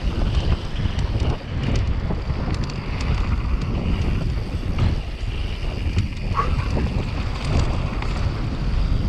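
Wind buffeting the microphone over the rumble of a mountain bike's tyres on a dry dirt trail at speed, with scattered small clicks and rattles from gravel and the bike.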